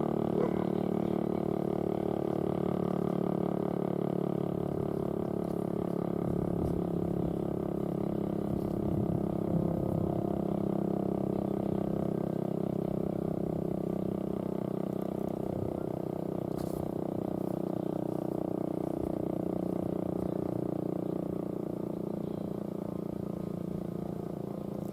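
Federal Signal STL-10A outdoor warning siren sounding its full-alert signal, a steady tone that holds one pitch and level.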